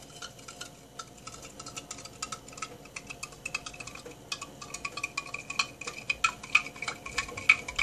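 A spoon stirring borax into hot water in a measuring cup to dissolve it: a quick run of light clinks and scrapes against the cup's sides, getting denser and louder about halfway through.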